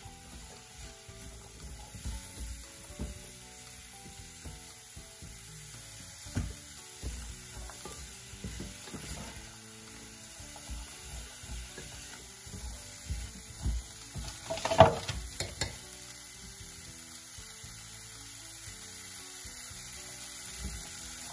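Diced vegetables sizzling as they are stir-fried in a stainless steel pot, with a silicone spatula scraping and knocking against the pot as it works at vegetables sticking to the bottom. About fourteen seconds in comes a louder knock with a short metallic ring from the pot.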